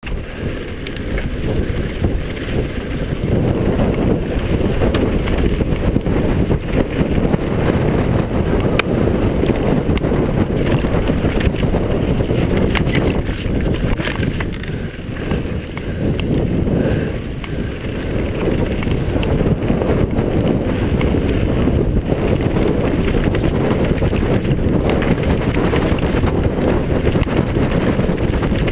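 Wind rushing and buffeting over an action camera's microphone as a downhill mountain bike descends fast, with the clatter and knocks of the bike and its tyres over dirt and stones. The loud rumble eases briefly twice in the middle.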